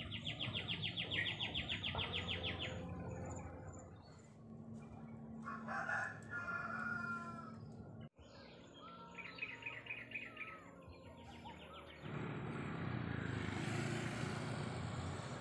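A rooster crows once, about six seconds in, among rapid high chirping trills of small birds. From about twelve seconds a steady rushing noise comes in.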